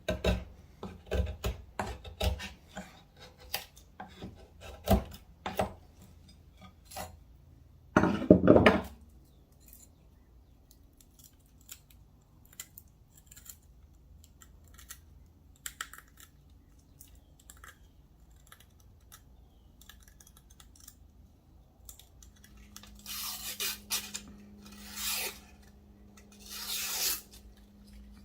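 A Kansept Main Street folding knife's 154CM Wharncliffe blade cutting into very hard wood, a rapid run of scraping, cracking strokes that is loudest about eight seconds in. Then come a few scattered small clicks, and three longer rasping strokes near the end.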